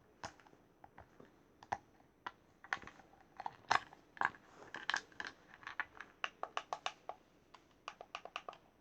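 A run of sharp, irregular cracks and knocks from an alarm clock being broken, coming faster, about three or four a second, in the later part.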